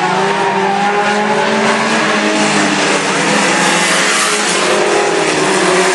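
Several mini-truck race engines running together as the trucks lap a dirt oval track; steady and loud.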